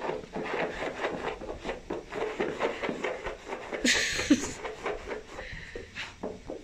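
Hands patting and rubbing on a carpet while a dog noses at them, as soft, irregular taps and scuffs, with a short breathy hiss about four seconds in.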